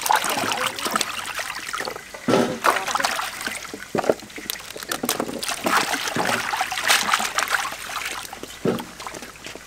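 Hands washing vegetables in a large aluminium basin of water: irregular splashing and sloshing as a bundle of long beans is swished through the water and lifted out, with water running off.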